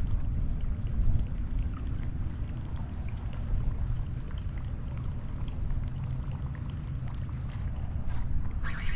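Wind rumbling on the camera microphone over water lapping and sloshing against the small boat's hull, with a short splash near the end.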